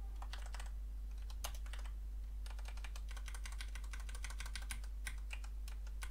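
Typing on a computer keyboard: scattered key clicks, with a quick run of keystrokes in the middle. A steady low hum runs underneath.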